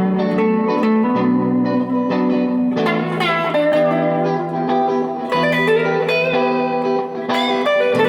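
Electric guitar played through a 1977 Fender Bassman 70 amplifier: a jam of ringing, sustained notes with freshly picked phrases about three, five and seven seconds in.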